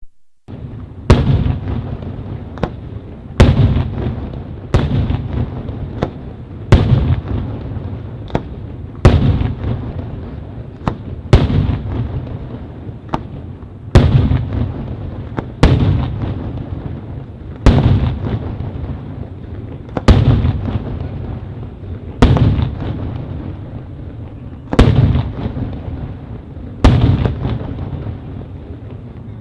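Aerial salute shells (saluts) bursting one after another, a loud bang about every two seconds. Each bang is followed by a rolling echo that fades out before the next one.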